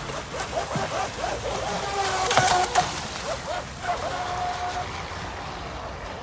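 Radio-controlled model boat running fast across a pond, its hull slapping and throwing spray, with a few sharp splashes about two and a half seconds in. Short rising-and-falling chirps and a brief steady tone near the middle sound over the water noise.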